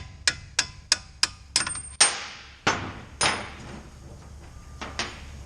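Hammer striking a steel punch to drive bolts out of a 2005 Ford Escape's front suspension. A quick run of light taps about three a second, then two heavier blows with a metallic ring, and a couple of lighter taps near the end.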